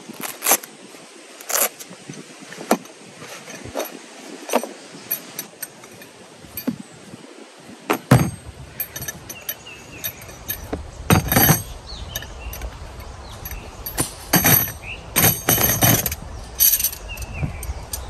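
Metal camping tools clinking and knocking in scattered clusters as they are taken from a tool roll and set on a plastic storage box lid. A low rumble runs underneath from about halfway through.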